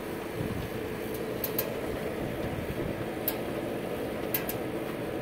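Coal-stoker drive of a homemade pellet smoker running with a steady mechanical hum and a held tone, broken now and then by a few sharp clicks.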